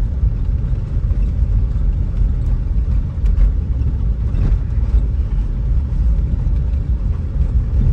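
Steady low road rumble of a car being driven, heard from inside the cabin: engine and tyre noise with no distinct events.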